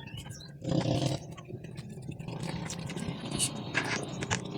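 A knife scraping the scales off tamban sardines in a run of short, sharp scrapes, over a steady low hum. A brief louder sound comes about a second in.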